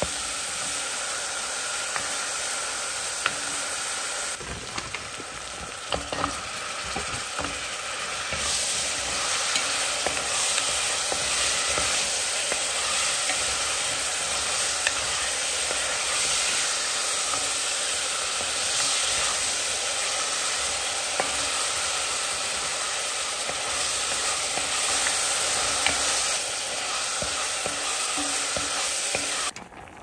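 Minced garlic and then raw shrimp sizzling in hot oil in an enamel pot, stirred with a wooden spoon, with a few light knocks of the spoon. The sizzling gets louder about eight seconds in and cuts off just before the end.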